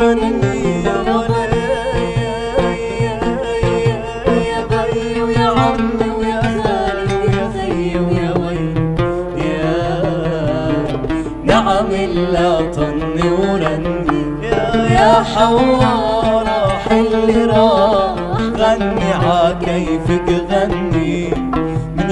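Oud and darbuka playing a Levantine folk song, with a quick, steady hand-drum rhythm under a wavering plucked melody.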